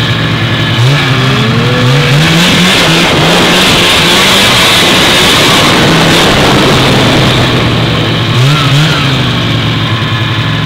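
Vintage two-stroke snowmobile engine running under throttle. Its pitch climbs in several quick rises starting about a second in, then holds high, and rises again near the end.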